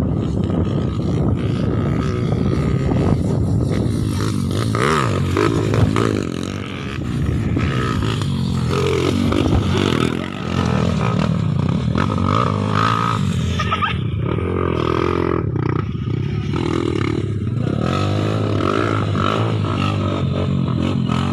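Dirt bike engines revving and accelerating, rising and falling in pitch, with brief drops about a third and halfway through.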